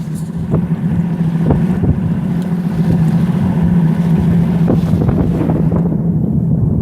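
Motorboat engine running steadily with a low hum, with wind buffeting the microphone.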